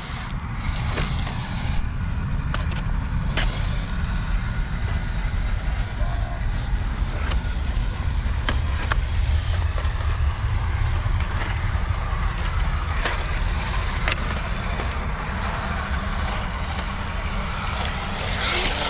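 Radio-controlled rock crawler working over rocks: scattered sharp clicks and knocks over a steady low rumble, with a brief brighter burst of sound near the end.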